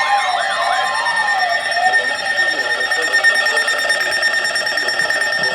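Electronic emergency alert tones. Warbling siren-like sweeps fade out about two seconds in, giving way to a fast, steady pulsing alarm tone over a held high note.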